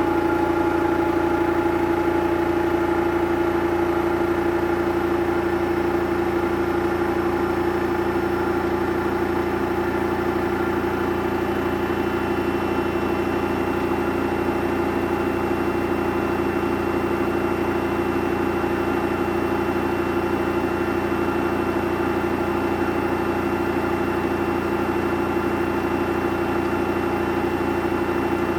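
Samsung front-loading washing machine running with a steady, even hum and a constant low tone.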